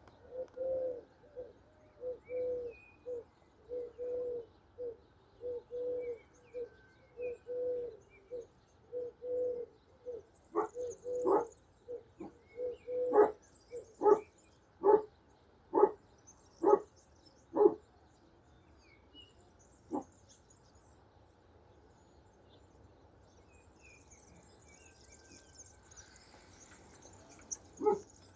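Doves cooing in a run of soft, low, repeated notes for about ten seconds, then a dog barking about eight times at an even pace, with a few more barks later on.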